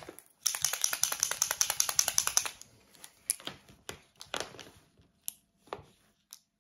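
Marker pen scratching on a small wooden kamaboko board: a quick run of strokes for about two seconds, then a few separate strokes.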